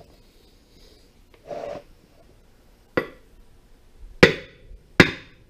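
Three hammer blows on a wooden block held against a hydraulic cylinder rod, each a sharp knock with a short ring, the last two close together; a hammer-and-block drive used in place of a press. A short, softer rustle comes about a second and a half in.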